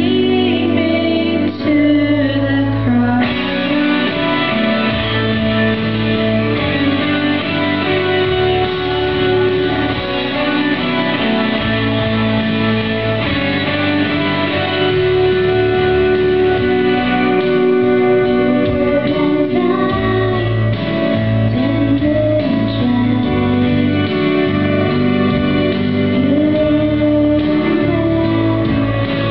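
Two girls singing a song into handheld microphones, amplified over a guitar accompaniment.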